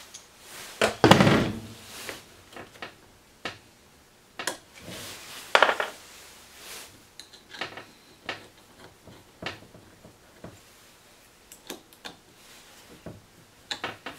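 Metal clinks and knocks from handling a pneumatic pop rivet gun while its interchangeable nosepiece and guide are fitted. The knocks are irregular, with two louder clatters about a second in and midway through.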